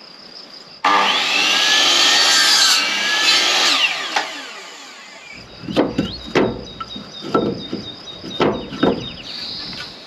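A handheld power tool cutting into wood for about three seconds, its motor pitch dipping and recovering under load, then winding down. This is followed by a string of sharp wooden knocks and clatters.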